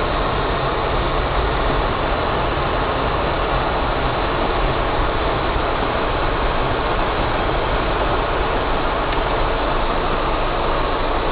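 Car engine and tyre noise heard from inside the cabin while driving on a wet, snowy road: a steady low rumble with an even hiss over it.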